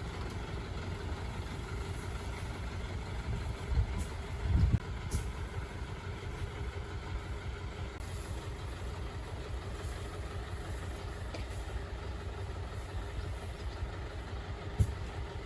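A motor vehicle's engine running steadily at idle, with a few short low thumps about four seconds in and again near the end.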